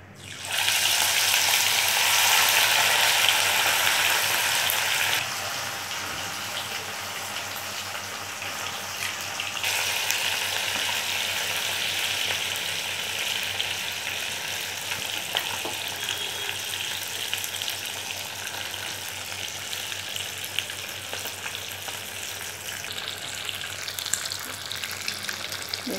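Marinated fish pieces shallow-frying in hot oil in a pan: a dense sizzle that starts suddenly about half a second in as the fish goes into the oil, loudest for the first five seconds, then continuing steadily.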